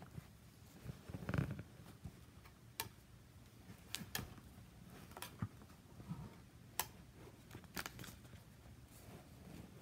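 Handling noise close to the microphone: scattered sharp clicks and taps with a short rustle about a second in, as a notebook and other objects are moved about. No guitar is being played.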